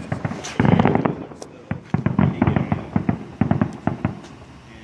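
Fireworks going off: volleys of rapid bangs and crackling, in several bursts, thinning out near the end.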